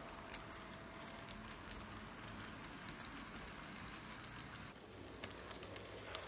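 HO-scale model train running on its layout track: a faint, steady low rumble with scattered light clicks from the wheels on the rails.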